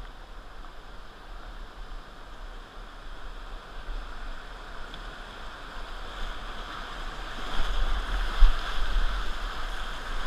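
Rushing whitewater of a river rapid, growing louder as the kayak paddles from a calm pool into the churning water. A low rumble swells with it near the end.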